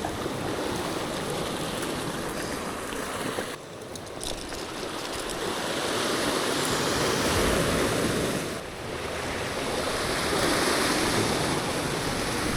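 Sea surf washing on the shore, the rush of water swelling and ebbing, dipping briefly twice.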